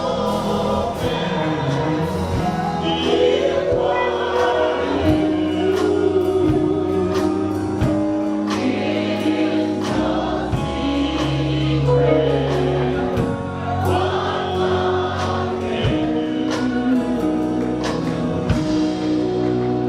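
Gospel worship song: voices singing together over a band, with bass and steady drum hits.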